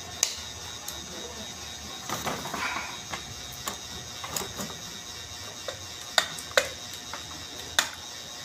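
Metal parts of a forklift starter motor clicking and scraping as its housing is fitted back together by hand, with a few sharp clinks.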